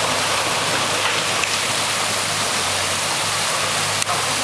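Muddy floodwater rushing over rocks in a swollen creek, a steady noise, with the low hum of a diesel excavator engine beneath it. A brief click comes near the end.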